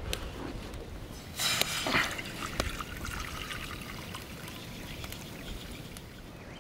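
Water being poured into a pot: a splashy pour begins about a second and a half in, then thins to a fading trickle.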